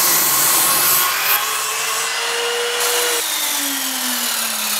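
ROK 1200W 210mm bench mitre saw, fitted with a 24-tooth tungsten carbide tipped blade, cutting through pine timber. The motor's tone drops and then falls slowly in pitch over the last couple of seconds.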